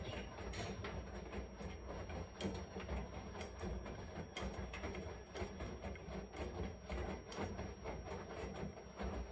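Washing machine running, a steady low rumble with frequent small irregular clicks and knocks from the turning drum.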